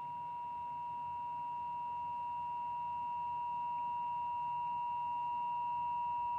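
Emergency Alert System attention signal: a steady two-tone beep (about 853 and 960 Hz) held unbroken, then cutting off suddenly near the end. It announces the Child Abduction Emergency (Amber Alert) message that follows.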